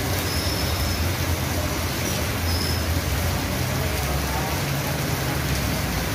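Heavy rain falling, a steady hiss, over a constant low rumble.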